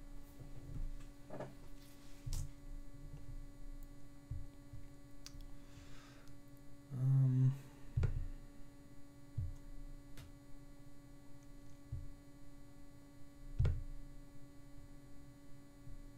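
Steady electrical hum on the recording, with a few faint clicks and knocks scattered through it and one short, louder low sound about seven seconds in.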